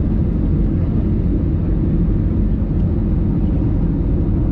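Steady low rumble of a jet airliner's cabin in flight on final approach: engine and airflow noise heard from a window seat over the wing, even and unbroken.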